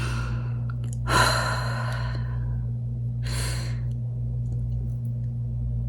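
A woman breathing out heavily in three audible breaths and sighs, the longest and loudest a drawn-out sigh about a second in, over a steady low hum.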